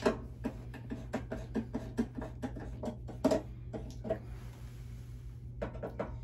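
Screwdriver backing a cover screw out of the front of an electrical panel: a run of small clicks at about three or four a second, then a brief faint scrape about four seconds in and a few more clicks near the end.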